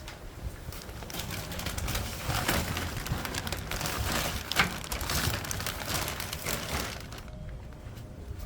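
Strong, gusty wind buffeting the microphone with a steady low rumble, mixed with a scatter of clicks and rustles that ease off about seven seconds in.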